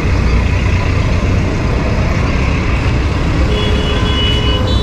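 Steady road traffic noise with a low rumble; a vehicle horn sounds from about three and a half seconds in, its pitch stepping up slightly near the end.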